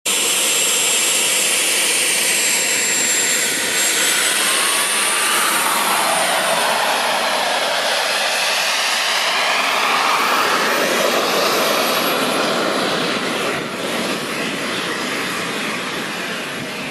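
K-180G2 turbine of a radio-controlled model jet running, a high whine over a rushing exhaust. The whine rises in pitch about four to six seconds in as the turbine speeds up, and the sound eases slightly near the end.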